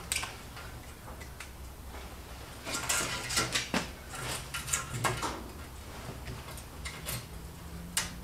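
Scattered light clicks, taps and scrapes of a marker pen and a sheet-steel panel being handled on a workbench, busiest in the middle, over a faint low hum.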